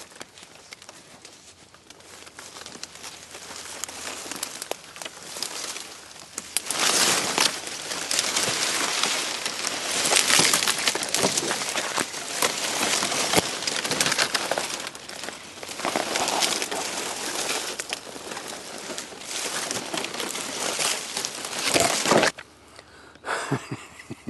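Dry palmetto fronds scraping and dead leaf litter crunching as someone pushes through the scrub on foot. The crackling swells about a quarter of the way in and cuts off sharply near the end.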